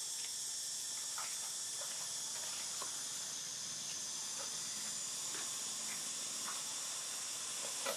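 Steady high-pitched hiss of an insect chorus in the trees, with faint short chirps now and then.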